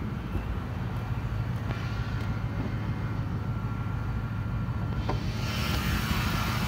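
1999 Lincoln Town Car's 4.6-litre V8 idling steadily with straight pipes. A click about five seconds in, after which a higher whir and hiss from the open engine bay grow louder.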